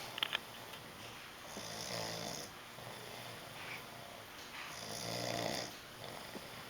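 A man snoring in his sleep: two long, rasping snores about three seconds apart. A couple of brief sharp sounds come right at the start.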